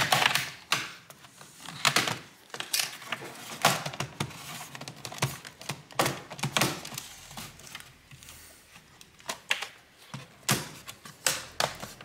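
Plastic clips along the seam of a Lenovo ThinkPad T580's bottom cover popping loose as the cover is pried open with a plastic pry tool: a series of irregular sharp clicks and cracks with plastic handling noise between them.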